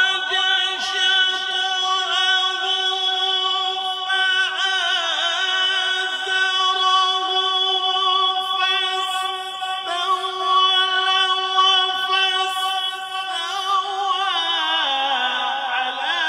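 A male qari reciting the Quran in melodic qirat style, holding long drawn-out notes with ornamented pitch turns, and sliding lower in pitch near the end.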